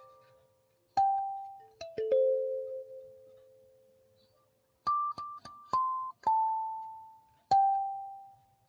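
Music: a slow, sparse melody of single notes on a keyboard instrument, each struck and left to ring out and fade. The notes stop briefly a little past the middle, then the melody resumes.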